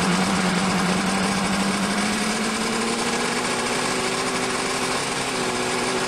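Powerboat's König two-stroke racing engine running steadily, its note creeping slightly higher.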